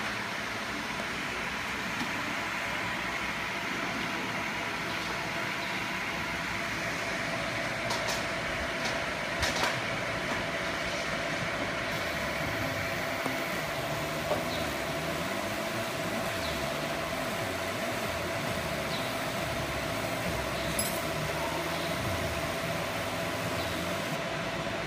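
Laser marking machine running over a steady fan hum; about halfway in a steady whine and a low, wavering buzz set in while the beam engraves lettering into a black card.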